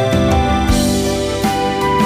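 Background music: a gentle instrumental track with piano or keyboard notes over a steady beat.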